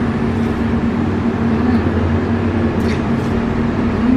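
A steady low machine hum runs throughout, with a few faint crisp crunches of watermelon being bitten and chewed.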